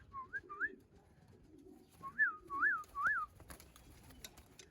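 Racing pigeons cooing low, with a few short clear whistled notes: quick rising ones at the start and three rise-and-fall notes about two seconds in. A few light clicks follow near the end.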